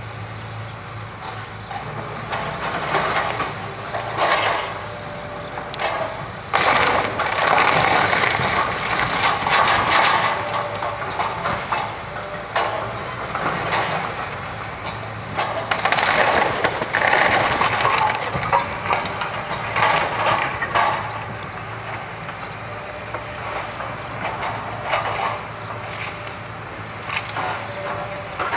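Hitachi Zaxis excavator's diesel engine running steadily while its demolition grab tears into a bungalow's timber roof and walls: repeated bursts of wood cracking, splintering and debris crashing down, loudest about a quarter of the way in and again past the middle.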